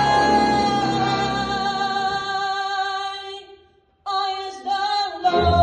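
Female voice singing a long held note that fades out about three and a half seconds in, then, after a brief gap, a new phrase with sliding pitch that settles into another held note near the end.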